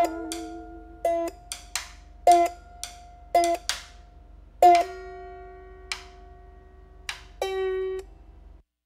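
Music: a plucked string instrument playing a few spaced single notes and chords, each ringing and fading. The piece ends with a final held note that cuts off near the end.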